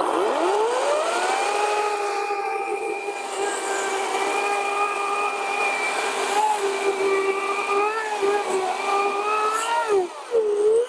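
EGO 56-volt CS1804 cordless brushless chainsaw spinning up with a rising whine, then cutting through a log about 10 to 11 inches thick at a steady high pitch that dips slightly as the chain bites. Near the end the pitch falls as the saw winds down, its cut finished.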